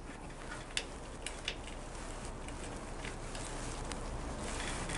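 A few faint, short clicks and taps of hands handling nuts and bolts at a motorcycle frame's transmission mounting plate, over a steady low hum.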